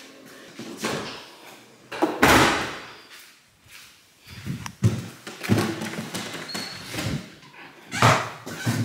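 An SUV's rear hatch is shut with a loud slam about two seconds in. Thuds, knocks and handling noise follow, and a door opens and closes near the end.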